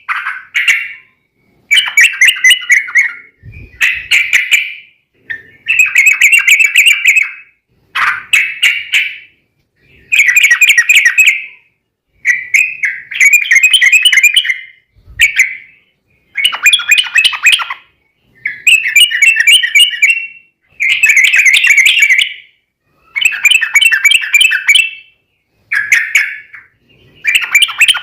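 Yellow-vented bulbul (trucukan) singing loudly in repeated bubbly, chattering phrases, each one to two seconds long with short pauses between, about a dozen in all.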